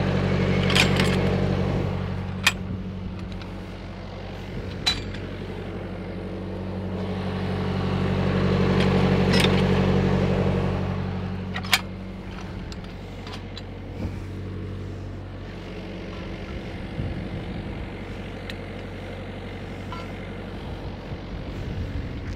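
Engine of a truck-mounted welding machine running steadily, growing louder near the start and again for a few seconds around the middle. A few sharp clicks and clanks come as pipe is handled on a pipe stand.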